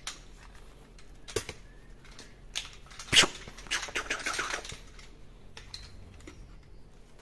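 Hard plastic toys being handled and knocked together: a few separate sharp clacks, the loudest about three seconds in, then a brief clattering rattle around four seconds.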